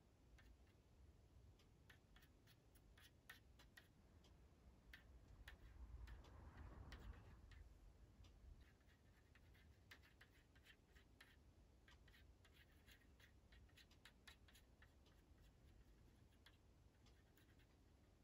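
Faint scratching and light ticking of a wooden skewer dragged through food colouring and agar syrup on a metal baking tray, with a soft swish about six seconds in.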